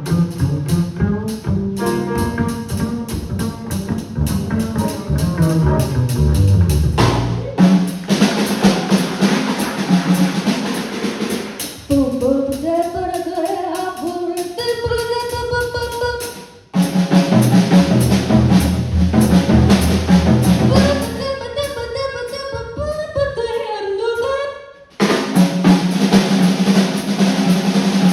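Jazz music with a prominent drum kit (snare, bass drum and rimshots), a low bass line and a gliding melody in the middle range. The music drops out briefly twice and comes straight back.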